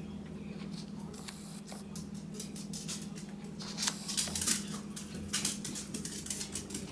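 Small dogs' claws clicking and scratching on a vinyl tile floor as a poodle and her puppies scamper about in play, in quick irregular bursts that are loudest about four seconds in, over a steady low hum.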